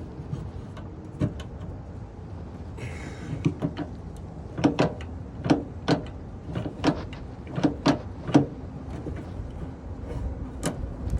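Clicks and knocks of a tailgate handle's clips and linkage rods being worked by hand inside a pickup's tailgate: a brief rattle about three seconds in, then a run of sharp clicks about two a second until past eight seconds, and one more near the end.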